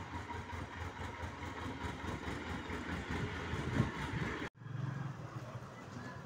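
Tractor engine idling with a rapid low chugging. About four and a half seconds in it cuts off abruptly and a steadier low hum follows.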